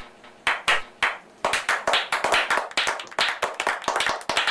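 Hand clapping: a few slow, spaced claps that build, about a second and a half in, into fast clapping by several people.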